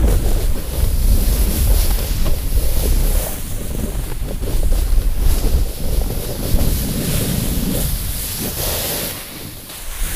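Wind rushing over the microphone with the scrape of snowboards carving fast down steep snow, a steady rumble and hiss that eases briefly near the end.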